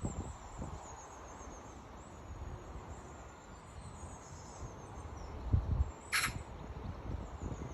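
Outdoor nature ambience: faint, high, repeated chirping of insects or birds over uneven low wind rumble on the microphone, with one short, sharp call or chirp a little after six seconds in.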